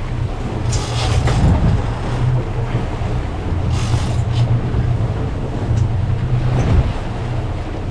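Boat engine running with a steady low drone, under a constant wash of wind and water noise, with a few brief hissing rushes.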